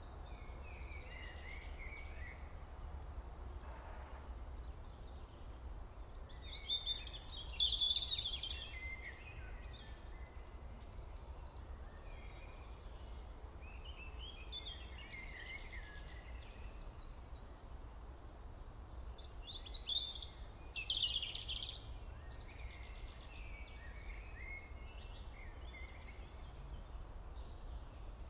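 Birds chirping and singing, loudest twice (about a third of the way in and again past two-thirds), with a steady series of short high chirps about every half second and a low constant rumble underneath.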